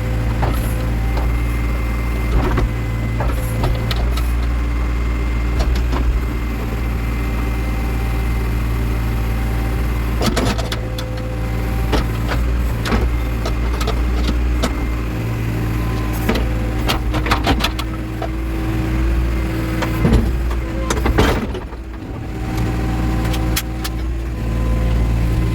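Backhoe loader's diesel engine running steadily under work, with scattered clicks and knocks.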